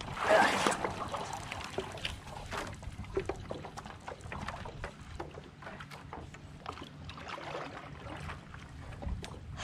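Stand-up paddle strokes through calm water: the blade dips, pulls and drips in small irregular splashes and sloshes. A louder burst of splashing and knocking comes right at the start.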